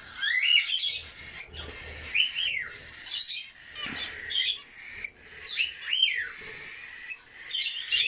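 Cockatiels and other small cage birds calling: repeated rising-and-falling whistled calls every second or two, over steady high-pitched chirping chatter.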